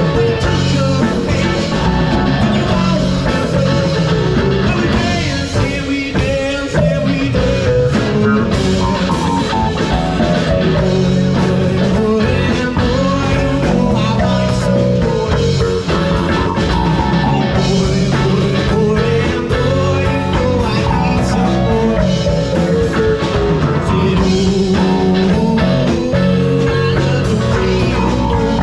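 A folk rock band playing an original song, with guitars to the fore over a steady beat.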